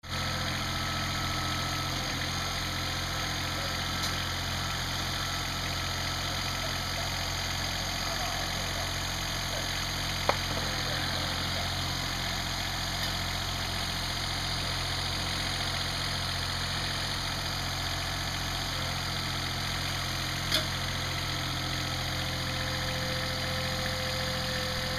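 Compact tractor engine idling steadily, with a sharp knock about ten seconds in and another about twenty seconds in.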